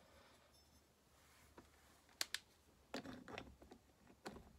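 Near silence broken by a few faint clicks and a short clatter of metal parts and tools being handled on a workbench, a sharp click about two seconds in and a brief rattle about three seconds in.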